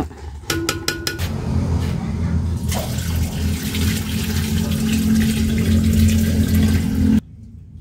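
Thin coconut milk being poured from a metal basin into a pot of simmering binignit: a steady liquid pouring and splashing that gets brighter about three seconds in and cuts off suddenly about seven seconds in.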